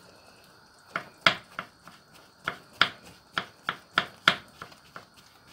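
Kitchen knife slicing button mushrooms on a wooden cutting board: a run of sharp knocks of the blade on the board, about three a second, starting about a second in.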